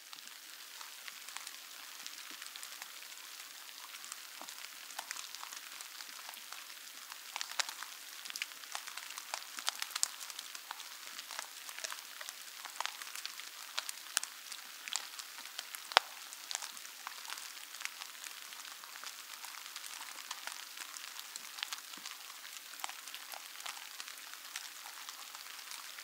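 Rain falling: a steady hiss with many scattered sharp ticks of drops, a few louder ones around the middle.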